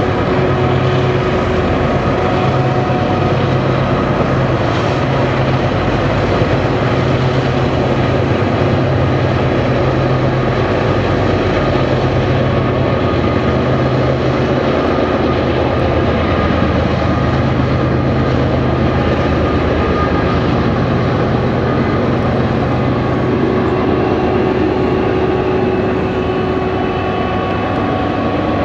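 Several BNSF diesel-electric freight locomotives running, a loud steady engine drone with a throbbing low note that swells and fades.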